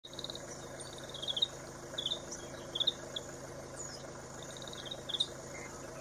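Forest ambience: a steady high insect buzz with short, rapid chirps, some quickly falling in pitch, repeated about once a second.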